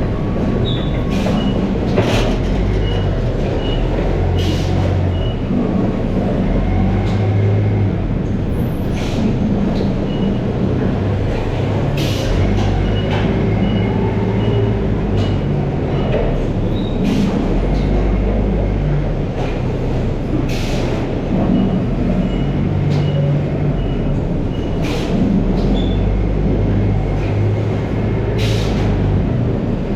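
Potato grading and bagging machinery running: a steady mechanical clatter with sharp knocks every few seconds. Several runs of short, high, evenly spaced beeps sound through it.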